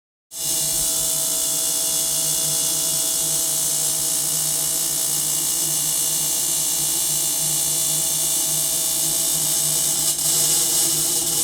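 Synthesized sci-fi sound effect: a steady electric whirring hum under a strong hiss, starting abruptly just after silence and holding at an even level.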